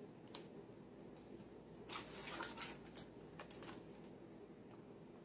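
Faint kitchen handling while condensed milk is drizzled over a pan: a few short scrapes and clicks, loudest in a cluster about two seconds in.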